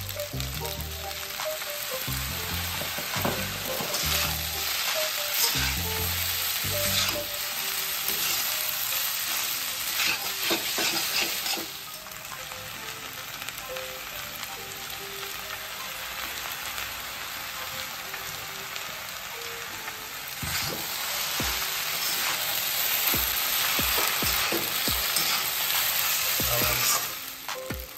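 Hakka noodles and vegetables sizzling as they are stir-fried in a hot black iron wok, with a steel spatula scraping and clicking against the wok. The sizzle dies down for several seconds midway, then picks up again.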